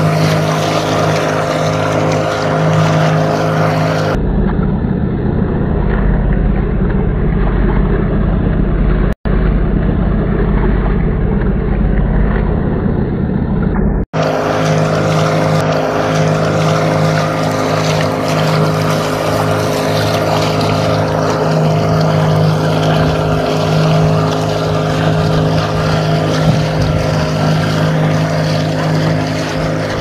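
Engine of a small motorised outrigger boat running steadily at cruising speed, a constant droning hum. Between about 4 and 14 seconds the low rumble grows heavier, and the sound cuts out briefly twice, at about 9 and 14 seconds.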